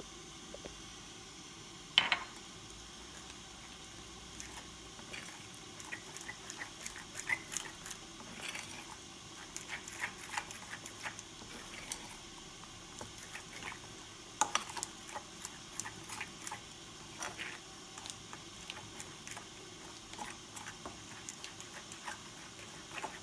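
A spoon stirring a thick egg and cornstarch marinade in a bowl, with irregular small clinks and scrapes against the bowl's side. One sharp knock about two seconds in.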